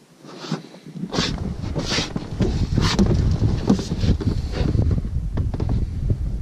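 Wind buffeting the microphone: a loud low rumble that sets in about a second in and keeps going, with short sharp noises about once a second over the first few seconds.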